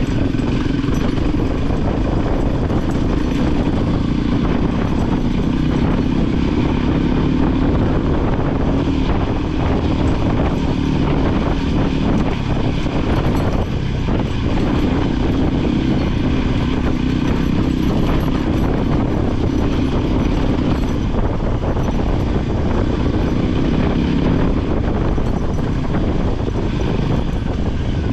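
Motorcycle engine running at a steady pitch while under way, with wind noise and frequent rattling.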